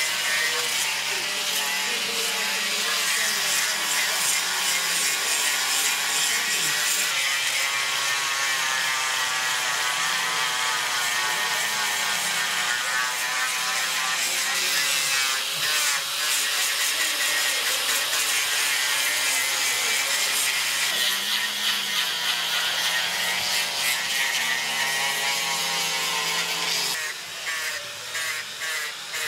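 Two-stroke chainsaws running and revving up and down as they cut into wood. Near the end the sound drops and gives way to a quieter power tool with a rapid pulsing.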